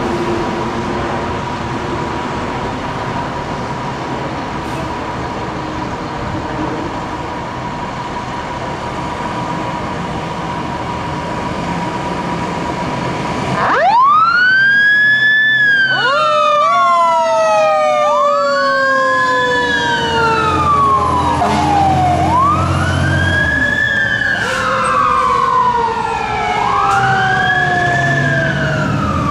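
Fire truck engine running with a steady high tone for about the first 14 seconds. Then sirens start up: repeated rising-and-falling wails from a Federal Signal electronic siren, with a slower mechanical Federal Q siren gliding up and winding down beneath them. Low engine rumble comes and goes under the sirens near the end.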